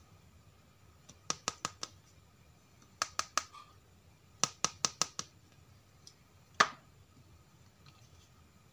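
Hard plastic toy rhinoceros figure clicking and tapping against a plastic tray as it is handled, in quick groups of three to five sharp clicks, with one louder knock about six and a half seconds in as it is set down.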